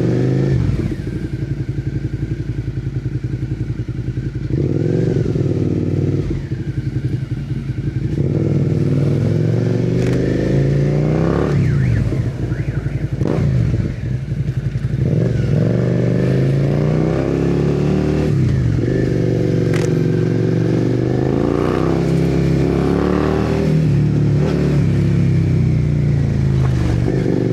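Suzuki SV650's V-twin engine through a MIVV replica exhaust with the catalytic converter removed, heard onboard while riding. It revs up and drops back again and again as it accelerates through the gears and eases off.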